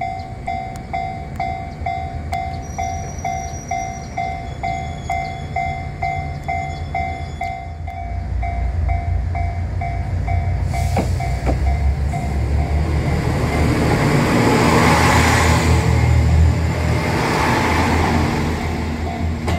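Level-crossing alarm ringing a repeated two-tone ding about twice a second while a JR train pulls in, its low rumble building from about eight seconds in and loudest near the end.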